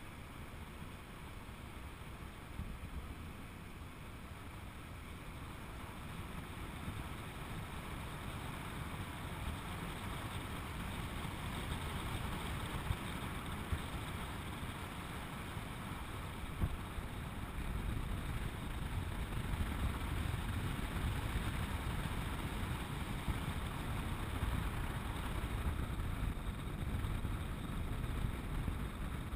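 Wind rushing over the microphone of a moving camera, with a steady low rumble from the motion along the road; it grows gradually louder over the first half or so, with a couple of brief knocks in the middle.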